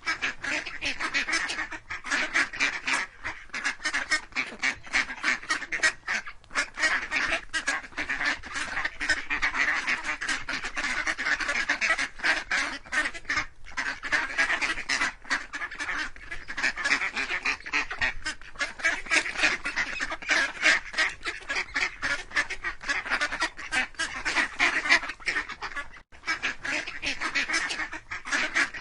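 Ducks quacking: a steady stream of rapid quacks with no real pauses.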